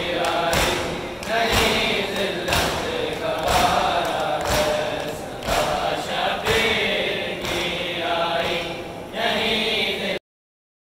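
A crowd of mourners chanting a noha together, with a rhythmic thump about once a second from matam, the beating of chests in time with the chant. The sound cuts off suddenly near the end.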